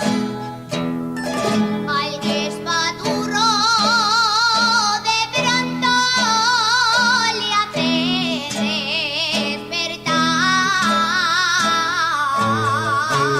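Aragonese jota: a plucked-string accompaniment of guitars and bandurrias strums chords, and about three seconds in a woman's voice enters, singing long high notes with a wide vibrato over it.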